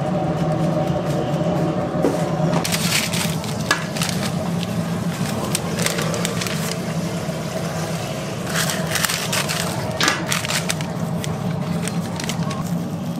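Paper bags crinkling and rustling in irregular bursts as fried croquettes are handled and bagged, over a steady low hum.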